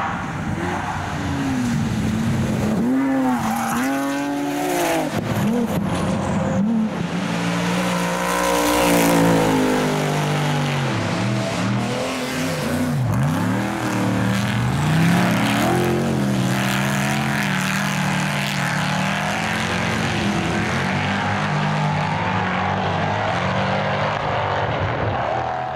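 Off-road racing buggies and a trophy truck driven hard on dirt tracks, engines revving up and down in pitch and sweeping past several times.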